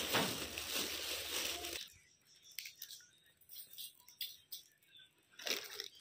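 Hands stirring and turning over dry wheat grains in a plastic tub: a dense rustling hiss of shifting grain for about the first two seconds, then softer scattered rustles and ticks of grain, with one short louder rustle near the end.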